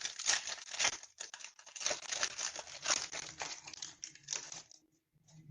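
Foil trading-card booster pack being torn open, its wrapper crinkling and tearing in a run of rustles that stops about four and a half seconds in.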